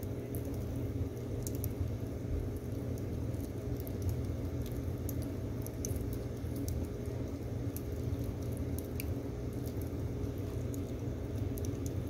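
Firewood logs burning in a metal stove, crackling with frequent small sharp pops over a steady low rumble.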